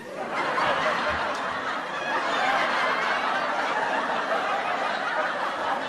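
Crowd laughter after a punchline, swelling in the first half-second and then holding steady.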